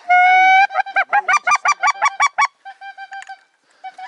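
Goose call blown close by to bring in a passing goose: one long drawn-out honk, then a fast run of short honks, about six or seven a second, followed by a quieter run of short notes.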